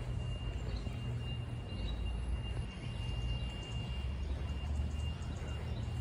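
Outdoor background noise picked up by a handheld phone while walking: a low rumble of wind and handling on the microphone, with a faint, steady high-pitched tone.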